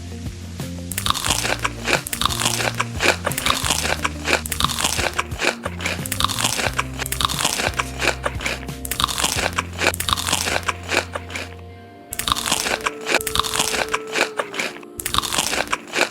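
Close-up crunching and chewing of crisp food, a dense run of loud crunches starting about a second in, with a brief break near the end, over background music.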